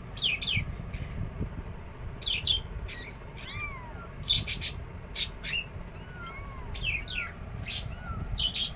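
Newborn kittens mewing, a string of thin, high squeaks and cries from several of them at once, some of the cries rising and then falling in pitch.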